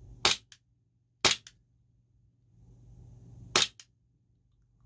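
Glock 18 gas-blowback airsoft pistol with an aluminum slide kit firing three single shots on semi-auto, each a sharp crack with a fainter click just after. The first two come about a second apart, and the third follows after a longer pause.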